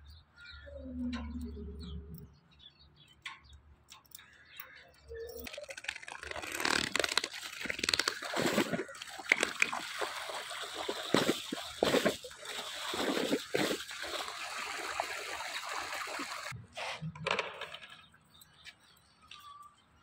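Water gushing from a pipe into a concrete water tank, splashing for about ten seconds and then cutting off suddenly.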